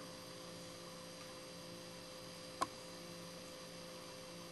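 Steady low electrical hum, with one sharp click about two and a half seconds in as a small glass bottle is set down on the bench.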